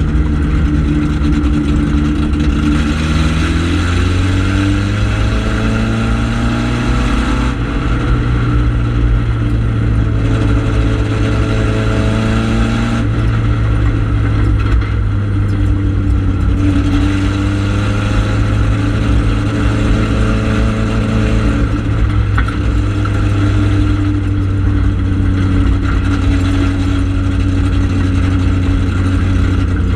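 Four-cylinder ministock race car engine running hard at racing speed, heard from inside the cockpit. Its pitch climbs for several seconds under throttle and then drops back, several times, over steady road and wind noise.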